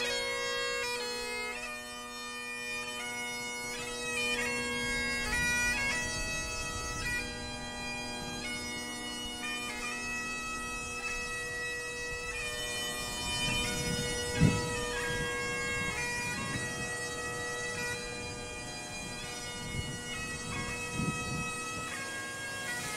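Great Highland bagpipes playing a slow melody of long held chanter notes over the steady drone, growing a little fainter in the first two seconds. A brief low thump sounds about halfway through.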